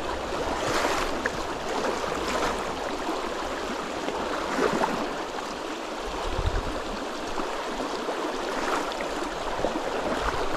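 Shallow river running over a stony bed: a steady rush of flowing water.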